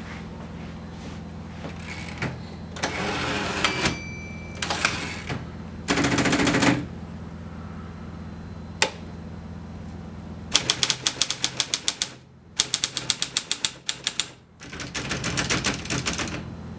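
Alpina manual typewriter: a few longer scraping sounds and a single click, then three bursts of fast typing, about eight sharp key strikes a second.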